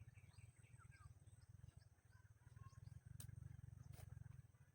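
Near silence: a faint low rumble with a few faint chirps and two light clicks near the end.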